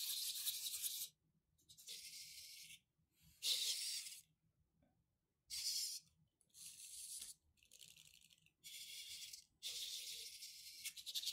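The servo motors of an Elecfreaks CM4 XGO robot dog whir in about eight short, high-pitched bursts, each under about a second with silences between, as its legs and gripper arm move under remote control.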